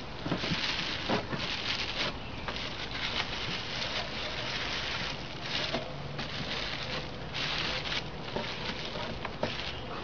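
Bubble wrap rustling and crinkling in repeated surges as hands tuck it around a window air conditioner, with a few light clicks and taps.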